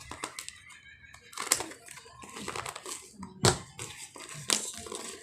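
Packaging being handled and unwrapped, crinkling and rustling irregularly, with a few sharper crackles.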